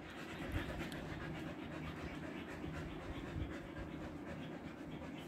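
Siberian husky panting steadily with its tongue out, a sign of struggling with the summer heat.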